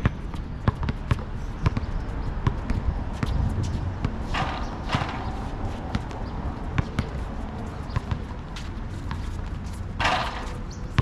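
A basketball bouncing and thudding on an asphalt court, in irregular dribbles and knocks. Two brief louder noisy bursts come about four seconds in and near the end.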